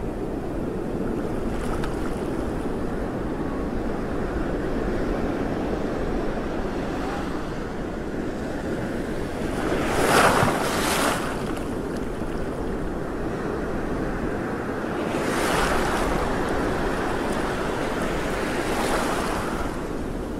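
Sea water washing with wind noise on the microphone, with louder splashing surges about ten seconds in and again around fifteen and nineteen seconds.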